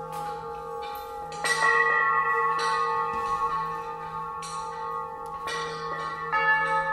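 Struck metal percussion ringing: several long, overlapping bell-like tones sustain, with fresh strikes about a second and a half in and twice more near the end.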